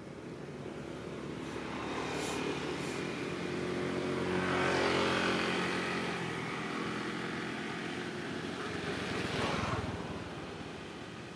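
A motor vehicle passing on the road: its engine grows louder to a peak about halfway through, then fades, with a second brief rise near the end.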